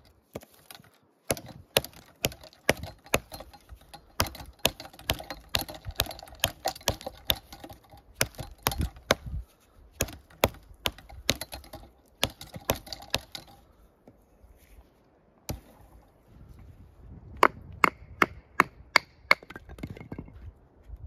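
QSP Bison fixed-blade bushcraft knife chopping into a dead branch: a quick run of sharp wooden chops, about three a second, for most of the first thirteen seconds. The knife is short-bladed and light, a poor chopper. Near the end comes a second short run of louder, sharper wooden knocks.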